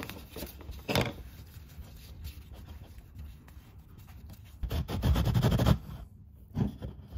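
Fingers pressing and rubbing soft modeling dough into a plastic bun mold, with a sharp knock about a second in and a louder stretch of rubbing and pressing about five seconds in. Another short knock comes near the end.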